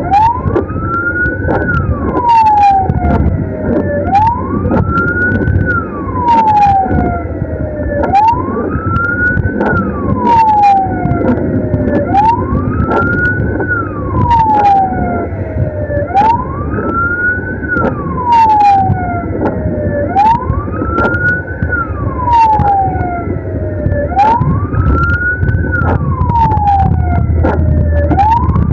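Ambulance siren in wail mode. Each cycle rises for about a second and a half, then falls for about two and a half, repeating roughly every four seconds. Underneath are a low engine and road rumble and scattered sharp clicks.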